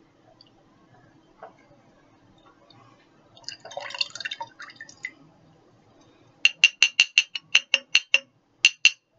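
Hot sauce dribbling from a small bottle into a glass jar, then the bottle's neck clinking against the jar's rim in a quick run of about a dozen taps, roughly six a second, and two more near the end, as the bottle is shaken out for the last drops.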